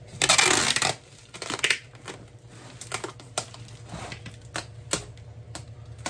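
Clear packing tape pulled off its roll in one short, loud rip across a cardboard box, followed by scattered clicks and crackles as the tape and box are handled and pressed down.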